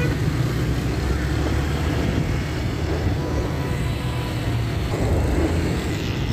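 Steady low rumble of road traffic, engines and tyres, heard from a vehicle moving through it, with wind on the microphone; no single event stands out.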